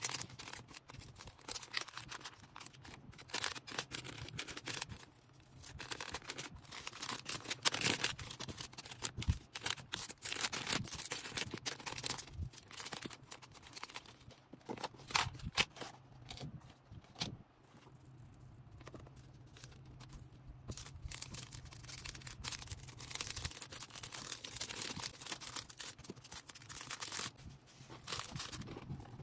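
Hands packing an order: plastic and paper packaging rustling, crinkling and tearing, with scattered sharp clicks and taps as items are handled.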